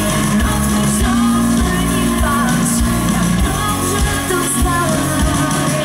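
Live rock band playing amplified, with electric guitar and bass guitar over a steady drum beat.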